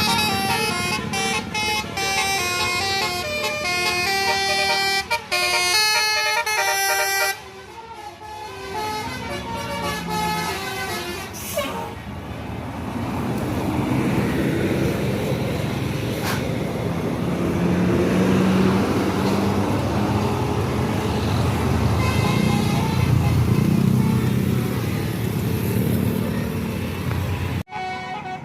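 Bus 'telolet' multi-tone air horn playing a melody of stepping notes for about seven seconds, then stopping suddenly. After it come bus engine and road noise with voices, and more horn notes later on.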